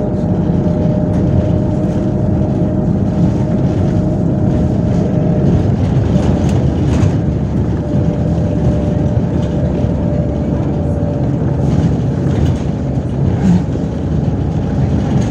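MAZ 103 city bus running under way, heard from inside the passenger cabin: a steady engine and drivetrain drone with a thin whine above it.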